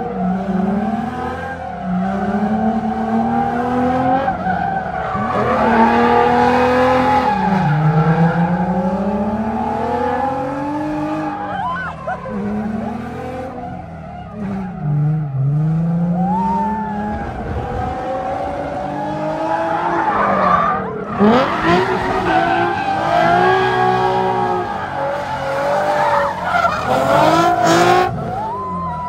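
Drift car's engine revving hard and dropping back again and again as it slides, its pitch climbing and falling repeatedly, with the tyres squealing and skidding on the asphalt.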